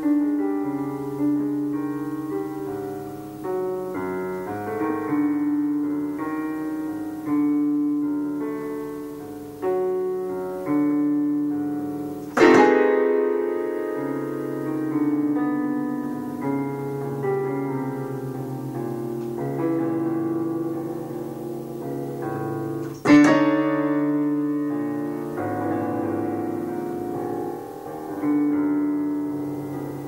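Electronic keyboard in a piano sound, played with both hands: slow held chords under a melody, with two louder struck chords, one about twelve seconds in and one about twenty-three seconds in.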